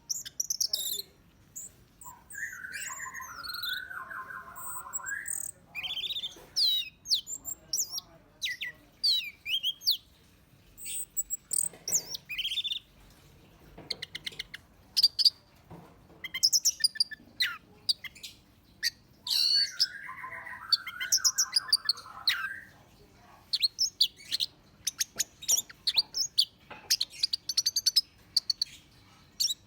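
Orange-headed thrush singing a long, varied song of loud whistles, fast sweeping trills and short chattering notes. A lower, rougher warbling phrase comes twice, about 2 seconds in and about 20 seconds in.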